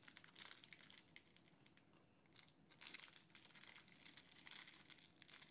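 Faint, irregular crinkling of a thin plastic Twinkie wrapper being handled and pulled at.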